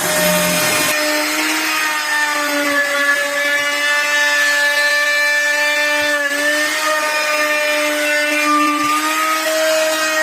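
Electric power tool running steadily in wood, its motor giving a steady whine that dips briefly in pitch about six seconds in.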